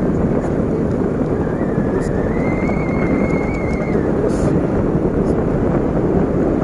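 Wind rushing over the microphone while riding a scooter, with the scooter's engine running underneath. A thin, high, wavering whistle holds for about two seconds midway.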